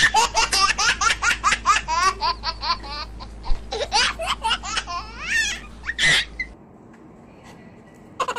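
High-pitched giggling laughter, a rapid run of short bursts about five a second, dubbed in as a laugh sound effect; it breaks off about six and a half seconds in. Just before the end a quick chatter of short chirps starts.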